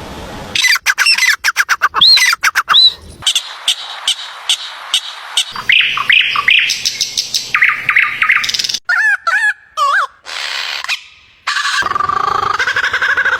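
A string of short clips of different birds singing and calling: rapid chirps and whistled notes, the sound changing abruptly every few seconds as one recording gives way to the next.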